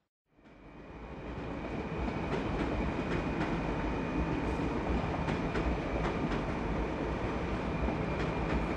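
Double-deck train standing at a station platform: a steady rumble and hiss with a thin, high, steady whine and scattered clicks, rising in over the first two seconds.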